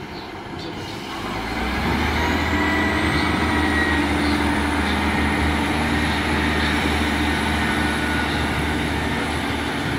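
Class 158 diesel multiple unit's underfloor diesel engines opening up as the train pulls away, a steady low drone that swells about a second in, with a faint high whine rising in pitch above it.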